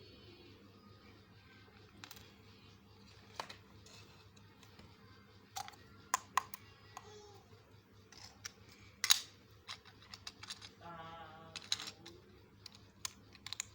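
Small plastic toy pieces and their packaging being handled: scattered light clicks and taps, with a sharper click about nine seconds in.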